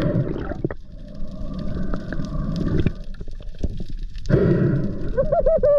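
Water rushing and gurgling around an underwater camera as a freediver swims with a freshly speared fish. Near the end comes a muffled, wavering whoop of the diver's voice, heard through the water.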